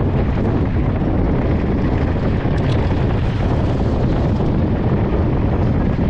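Wind buffeting an action camera's microphone on a moving mountain bike, a steady loud low rumble.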